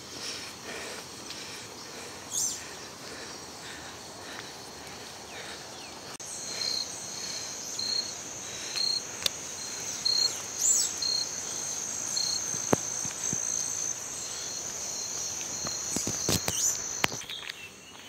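Crickets chirping in the forest: a steady high-pitched trill sets in about six seconds in, with a lower chirp repeating a little over once a second, and both stop shortly before the end. A few short rising bird calls cut through.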